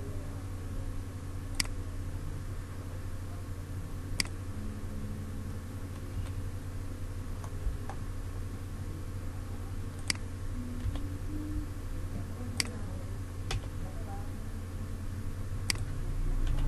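Computer mouse clicking: about six single sharp clicks spaced a few seconds apart, over a steady low hum.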